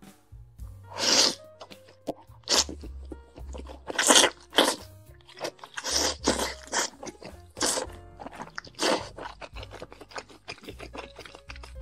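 Close-miked slurping and chewing of a mouthful of braised noodles with green beans and pork, in a string of loud bursts roughly every second. Soft background music plays underneath.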